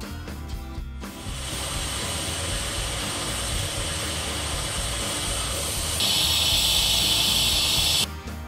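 WMF Perfect Plus pressure cooker venting steam through its valve with a steady hiss, which gets louder about six seconds in and cuts off suddenly near the end. This is the cooker's 'whistle': it has come up to pressure, its indicator rings raised.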